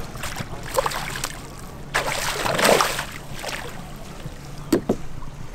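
A hooked fish splashing at the water surface as it is scooped into a landing net, the loudest splashing between about two and three and a half seconds in, over a steady low hum. A couple of short knocks near the end.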